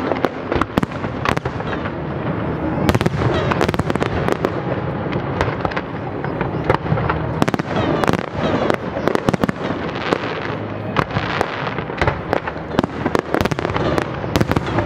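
Aerial fireworks display: a dense, continuous barrage of sharp shell bursts and crackling, many bangs in quick succession.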